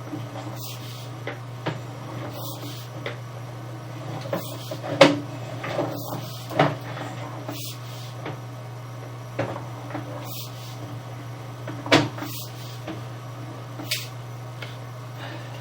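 Steady low electrical hum with a dozen or so irregular knocks and clacks from sewer inspection camera equipment being handled, the loudest about five and twelve seconds in.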